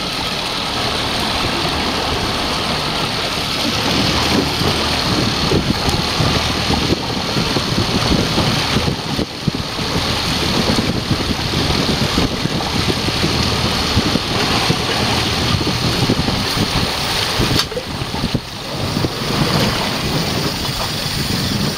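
Wind blowing on the microphone, with a steady wash of sea and boat noise underneath.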